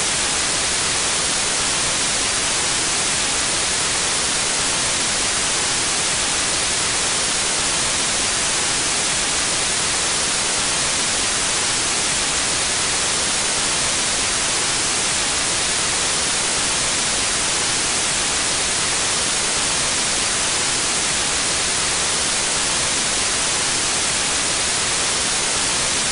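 Analog television static: the steady hiss of a TV set picking up no signal.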